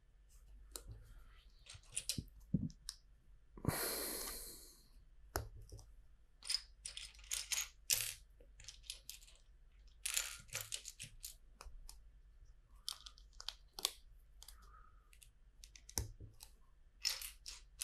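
Plastic LEGO bricks clicking and clattering as they are picked out of a loose pile and handled, with a longer rattle about four seconds in.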